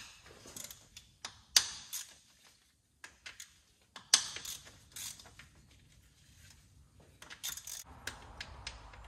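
Ratchet wrench clicking and hand tools knocking on metal engine parts. There are scattered clicks and short quick runs, with two sharp metal knocks, one about a second and a half in and one about four seconds in.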